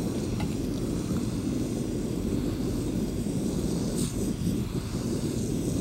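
Small gas-canister stove burning with a steady, low rushing noise under a glass flask of water.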